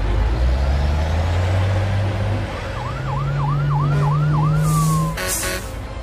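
Cartoon fire truck sound effect: a low steady engine hum that steps up in pitch partway through, then a fast yelping siren of about three wails a second for roughly two seconds, ending in a falling wail. A few sharp music beats come in near the end.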